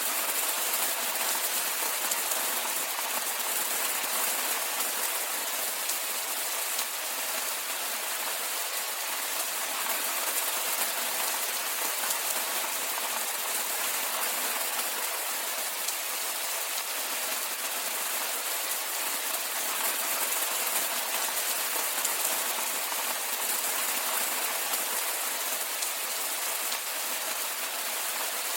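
Steady rainfall: an even hiss of rain with a fine patter of drops.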